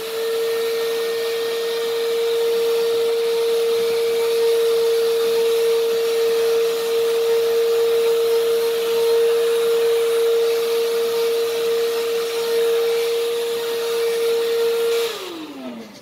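AFBEST cordless handheld vacuum cleaner running loud and steady with a high motor whine while it sucks up crumbs. About fifteen seconds in the motor cuts out as the hold-to-run switch is let go, and the whine falls away as it spins down.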